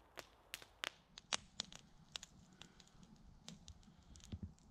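Wood fire crackling, faint: a dozen or so sharp, irregular pops and snaps.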